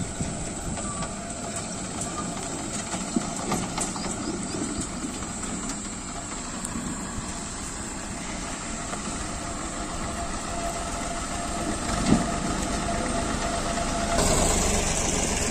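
HMT 3511 tractor's diesel engine running as it comes down a steep dirt slope pulling a loaded trolley, with one thump about twelve seconds in. The engine gets louder near the end as the tractor comes close.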